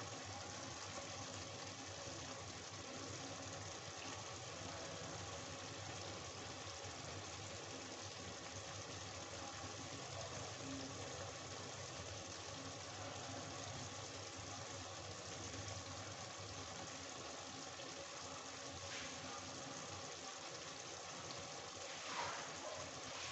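Chicken curry simmering in a kadhai on a gas stove: a steady low hiss with soft bubbling of the thick gravy, and one brief louder sound near the end.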